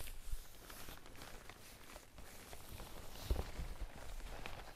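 Rustling of the stiff, noisy fabric of a Carinthia Survival rain suit as the wearer pulls the strap at a trouser-leg cuff and straightens up, with a louder rustle and thump about three seconds in.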